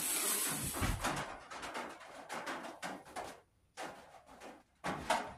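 Fiberglass mesh drywall tape rustling and scraping as it is laid and rubbed down by hand along a glued wooden bow stave. The first second holds a longer hiss, followed by a run of short rubbing strokes.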